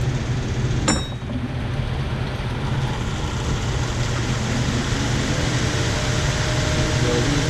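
A shop fan running with a steady whir. About a second in, a single sharp metal clink with a brief ring.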